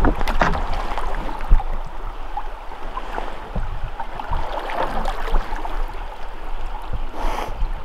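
Creek water rushing and lapping around an inflatable raft under oars, with scattered short knocks from the oars and the raft's frame; the sharpest knock comes about a second and a half in.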